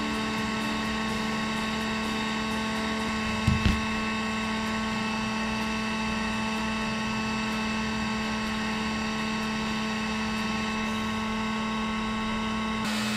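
Electric heat gun running steadily: a constant fan-motor hum with a few steady tones. A short knock about three and a half seconds in.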